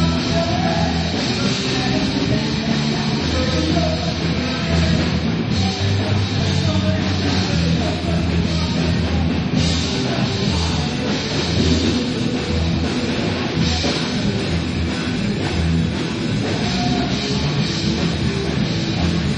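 Live rock band playing, guitar and drum kit.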